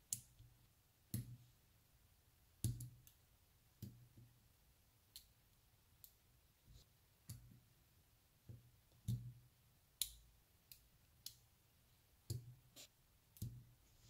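Small neodymium magnetic balls clicking together as clusters and rods of them are snapped onto a magnetic-ball sculpture: sharp clicks about once a second, several with a dull knock beneath.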